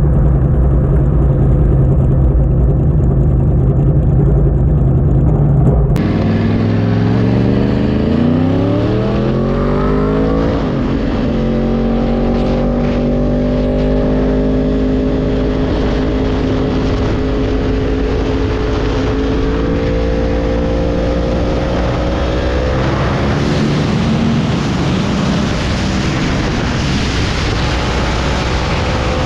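2010 Yamaha YZF-R1's crossplane inline-four through a Yoshimura slip-on muffler, heard from on board: the engine pulls hard with a steeply rising pitch, shifts gear about ten seconds in, then holds a steady note at speed with wind rushing over the bike, the pitch creeping up again near the end. The opening seconds are duller and muffled.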